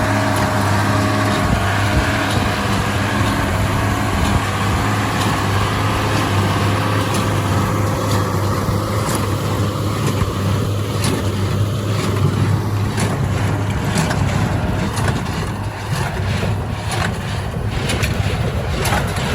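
An engine running steadily, with a mid-range tone sinking slowly over the first half and sharp irregular clicks from about halfway on.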